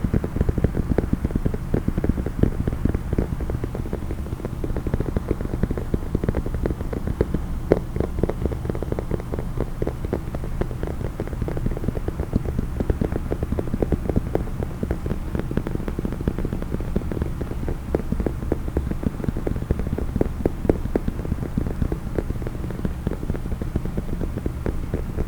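Fast, continuous tapping on a hard case, many quick dull taps a second.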